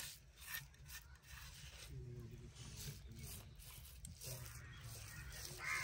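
Faint scraping and rubbing of fingers gathering a gritty spice paste off a clay plate and working it onto raw fish, in short scratchy strokes. Faint distant calls sound twice in the background.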